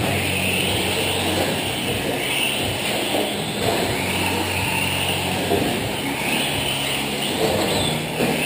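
Electric four-wheel-drive short-course RC trucks racing together on a clay track. Their motors and drivetrains whine, rising and falling in pitch as they speed up and slow down, over a steady low rumble.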